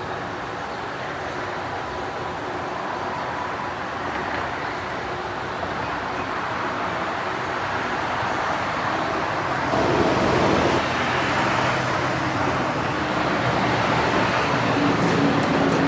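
Home Decorators Collection Palm Cove ceiling fan running on an extremely bad capacitor: a faint steady hum under a constant background roar that grows louder about ten seconds in. A few faint clicks come near the end.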